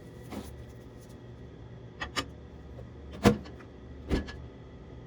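A few short knocks and clicks of things being handled, the loudest about three seconds in, over a steady low hum.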